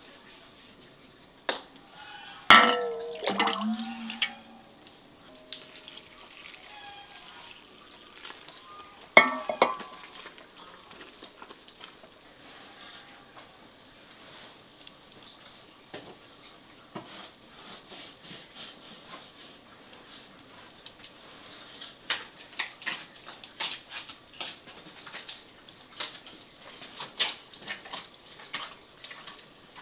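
Scattered clinks and knocks of dishes and kitchen utensils being handled, with two louder clatters, one a couple of seconds in and one about nine seconds in, and quicker small clicks near the end.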